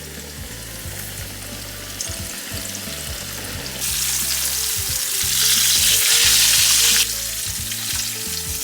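Dredged catfish fillets deep-frying in hot oil: a steady sizzle that gets much louder around the middle and drops back suddenly near the end.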